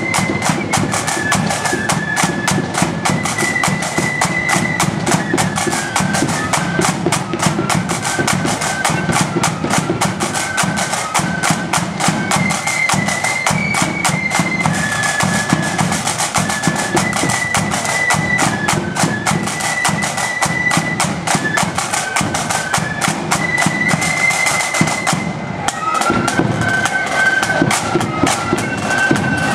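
Marching flute band playing a march: flutes carry the melody over rapid snare-drum beating and a bass drum. The drums break off for a moment near the end, then the tune carries on.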